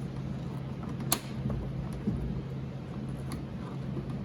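Light handling clicks from hand work on a car door's mirror screw: one sharp click about a second in and a lighter one a couple of seconds later, over a steady low hum.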